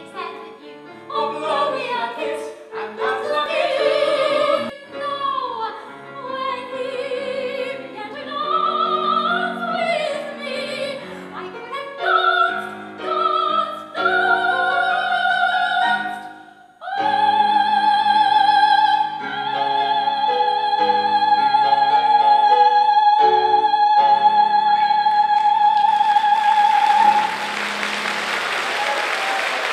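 A woman singing in a classical, operatic style with piano accompaniment. About halfway through she holds one long high note for around ten seconds. Audience applause breaks in near the end.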